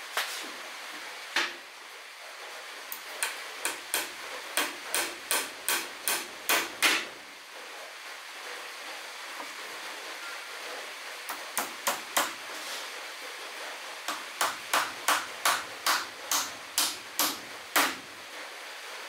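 Hammer driving nails into wooden cladding boards: two runs of quick strikes, about two or three a second, each run growing louder, with a few lone taps between. A steady hiss runs underneath.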